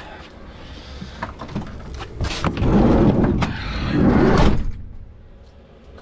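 Clicks, knocks and rustling of things being handled and moved, with two louder rushes of noise about two and four seconds in. Under it, and alone near the end, a steady low hum from the running diesel heater.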